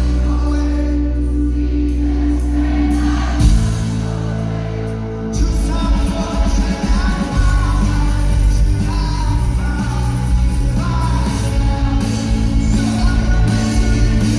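Rock band playing live with a lead singer. After a short stretch without cymbals, the full band comes back in about five seconds in.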